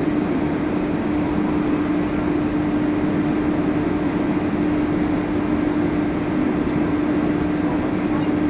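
Cabin noise of a Boeing 767 taxiing, heard from inside the passenger cabin: the jet engines and airflow make a steady rumble with one constant hum running through it.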